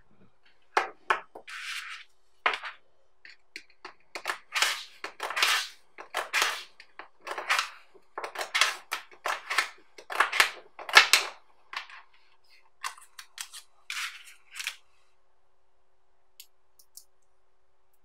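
Small neodymium magnetic balls clicking and snapping together and rattling as clusters are pulled apart and rearranged by hand and with a plastic card. A quick run of sharp clicks and short clattering rattles that thins out to a few faint ticks near the end.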